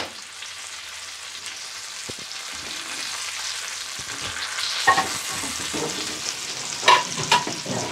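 Fish pieces sizzling steadily in hot oil in a frying pan, the fish fried to a dark brown. A few brief clatters come about five and seven seconds in.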